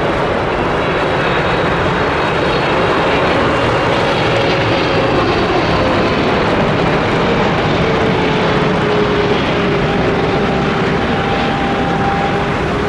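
Boeing 777 freighter's twin GE90 turbofan engines on landing approach: a loud, steady rushing jet roar with a faint whine that slowly falls in pitch as the aircraft passes.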